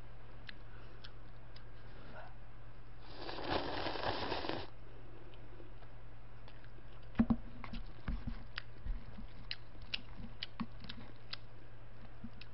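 A person eating Chapagetti instant black-bean noodles with chopsticks: a long slurp of noodles about three seconds in, a sharp tap around seven seconds, and small wet mouth clicks and chewing sounds between them, over a steady low electrical hum.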